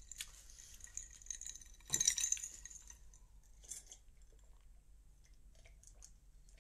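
A drinking glass being handled, with a sharp clink about two seconds in, followed by faint sips and swallows as a drink is taken from it.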